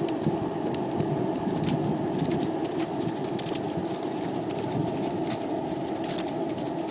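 Skateboard wheels rolling steadily over pavement: a continuous rumble with scattered small clicks.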